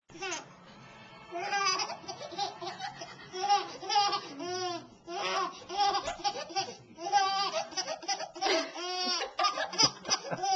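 A seven-month-old baby laughing hard, overtired, in a long string of short high-pitched giggles one after another, starting about a second and a half in.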